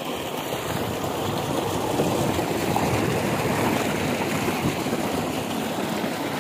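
Water gushing steadily from a solar-powered tubewell's outlet pipe and splashing into a concrete tank.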